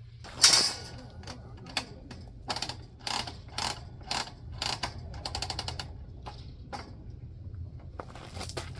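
A series of sharp mechanical clicks and rattles, the loudest about half a second in, then roughly one every half second, with a quick run of ticks about five seconds in.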